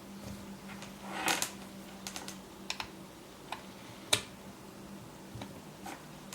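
Scattered light clicks and taps from small hard objects being handled, with a short rustle about a second in and one sharp click about four seconds in, over a faint steady low hum.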